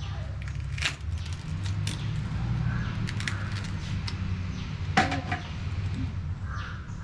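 Ripe palmyra palm fruit being handled and its skin pulled off over a steel tray: scattered sharp cracks and knocks, the loudest about five seconds in, over a steady low rumble.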